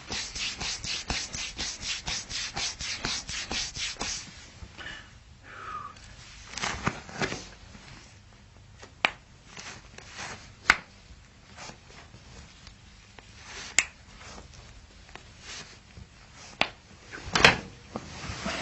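Hands rubbing quickly over skin, about five strokes a second, for the first four seconds. Then a few sharp, separate clicks and pops, the loudest near the end.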